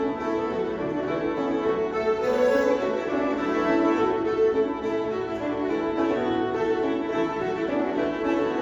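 Two fiddles and a banjo playing an old-time fiddle tune, steady and unbroken.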